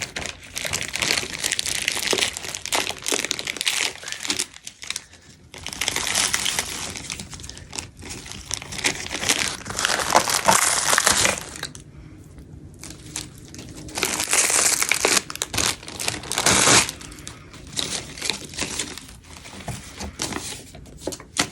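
Packaging being crinkled and rustled while a package is unwrapped and its contents handled, in several long stretches with short pauses between.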